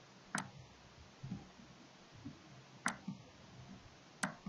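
Three sharp single computer mouse clicks, unevenly spaced, over faint room tone.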